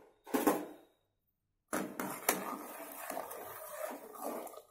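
Wooden ladle stirring sambar in a pressure cooker pot, scraping and sloshing, with a few sharp knocks of the ladle against the pot, two of them close together about two seconds in.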